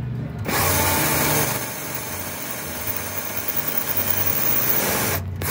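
Power drill run for several seconds, boring out the hole in a plastic EVAP hose valve; it starts about half a second in, stops abruptly near the end, and is followed by a short blip of the trigger.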